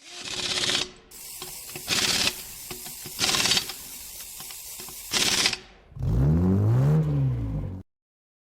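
Fast mechanical clicking with four short loud hissing bursts, then a tone that rises and falls in pitch for about two seconds and cuts off abruptly.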